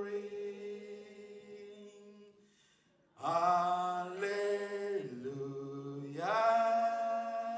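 Slow worship song sung with little or no accompaniment: a lead singer draws out long held notes, ending the word "victory", then a sustained phrase from about three seconds in, and "Hallelujah" near the end. A steady low hum sounds underneath.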